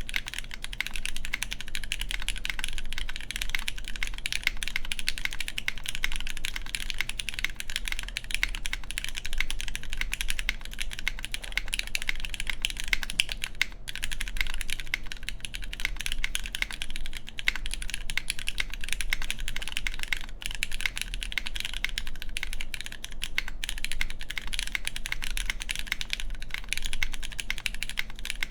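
Fast, continuous typing on an Antipode Studio Pneuma Mk.2/60 custom mechanical keyboard: lubed Cherry MX Black Clear Top linear switches with 78 g springs on a full aluminium plate, under GMK keycaps, with all gaskets fitted, including under the spacebar. A dense run of key clacks, briefly broken by a short pause twice.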